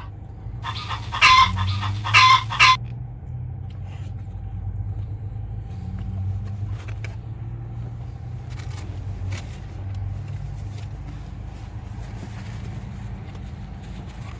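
A brief chicken-clucking sound effect of about two seconds, with three loud peaks, starting and cutting off abruptly about a second in. Under it, a car engine idles steadily.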